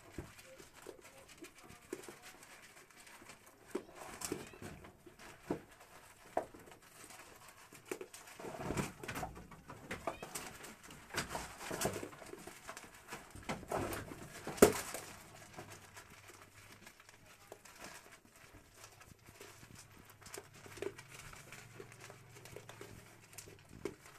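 Goats feeding on corn from a metal pan, making scattered knocks and scuffles as they jostle with muzzles and heads against the pan, busiest in the middle with one sharp knock about fifteen seconds in.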